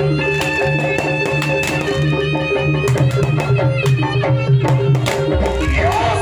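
Music with drum-like percussion over held tones and a low bass line; a wavering melody line comes in near the end.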